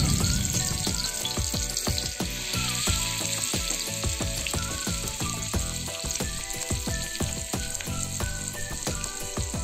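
Masala-coated mackerel shallow-frying in hot oil in a pan: a steady sizzle with many small crackling pops.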